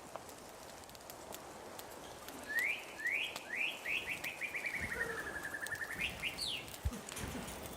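A small songbird singing one song of about four seconds: a few quick rising notes, a fast trill that slides gently down, then a couple of high rising notes to finish. A dull low thump sounds near the end.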